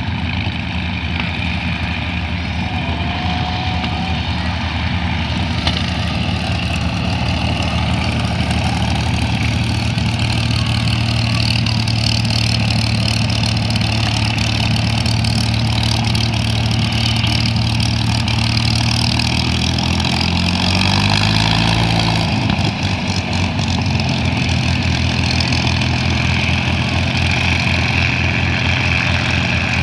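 P-51D Mustang's Packard Merlin V-12 engine running at taxi power as the fighter rolls past, a steady low drone. About two-thirds of the way through, the engine note dips in pitch and then comes back up.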